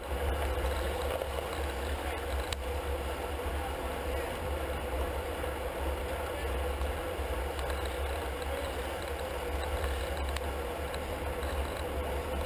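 Steady wind rumble on a handlebar-mounted camera's microphone as a road bike rides at racing speed in a pack, with tyre and road noise beneath.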